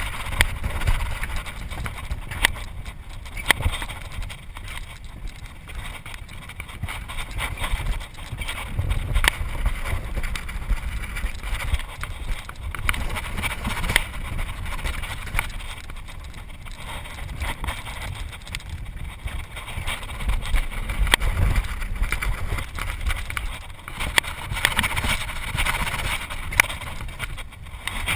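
Alpine coaster sled rolling down its steel track, its wheels rumbling with frequent short clacks and rattles, mixed with wind on the microphone.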